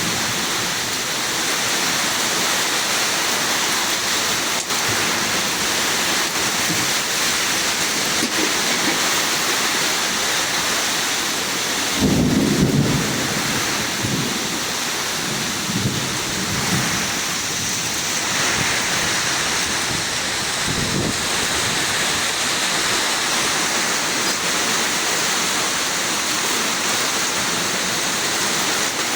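Heavy rain falling in a summer thunderstorm, a steady hiss. About twelve seconds in, a rumble of thunder breaks in, followed by a few fainter rumbles.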